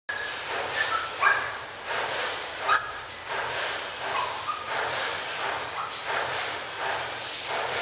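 Animal calls: short, high-pitched calls repeating every half second or so, with a few lower calls in between, over a steady background hiss.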